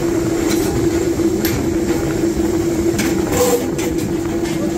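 Forging press running with a steady mechanical hum, with several short sharp knocks of tools on metal, a few of them close together about three seconds in.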